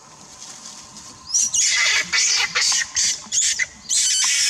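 A young macaque screaming: after a quiet start, a rapid string of about seven harsh, high-pitched shrieks beginning about a second and a half in, the last one held longest.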